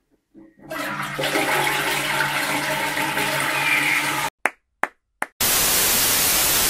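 Toilet flushing for about three and a half seconds, a rushing water sound that cuts off suddenly. It is followed by three short blips and then a steady, even hiss.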